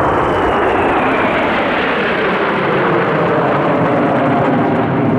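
Kawasaki T-4 jet trainers' turbofan engines passing close by: loud, steady jet noise with a whine that falls in pitch over the first two seconds as they go past.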